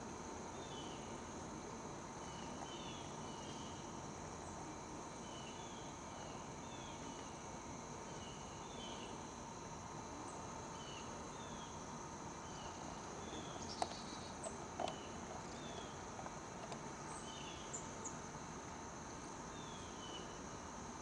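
Insects chirping: a steady high-pitched trill with short falling chirps repeating about once a second, often in pairs, and a couple of faint clicks about two-thirds of the way through.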